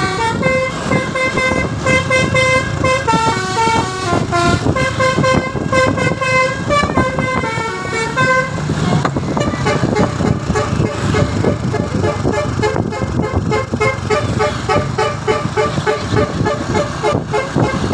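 Basuri telolet horn, the multi-trumpet musical horn fitted to Indonesian buses, playing a tune of stepping notes. About halfway through the notes turn faster and more rapidly repeated, over a steady low rumble.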